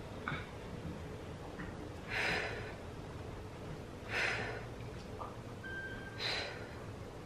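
A woman's sharp breaths out through pursed lips, three of them about two seconds apart, one on each repetition of an overhead arm exercise.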